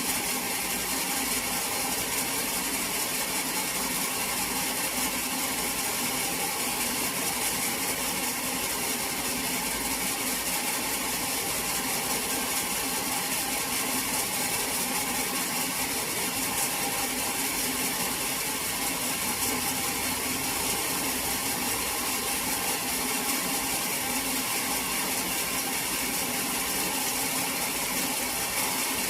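Sawmill machinery running with a steady mechanical drone and a whine of several steady tones, unchanging throughout.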